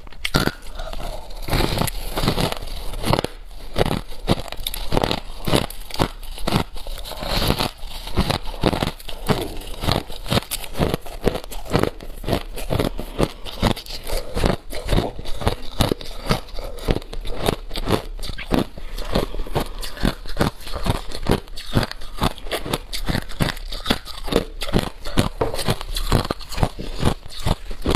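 A person biting and chewing a packed lump of crushed ice: a dense, unbroken run of crisp crunches, several a second.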